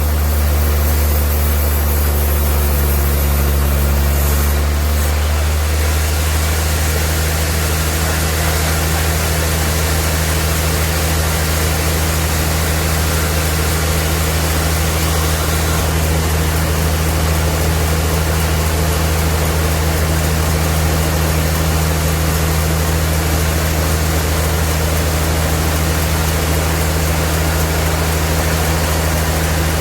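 Sawmill machinery running steadily: a constant low hum under an even hiss of noise, shifting slightly about five seconds in.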